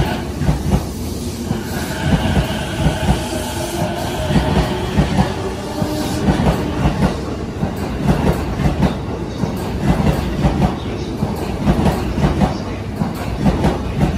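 JR East E233 series electric train rolling past along the platform: a steady rumble with the wheels clacking over rail joints in a repeated rhythm, and faint tones from the running gear.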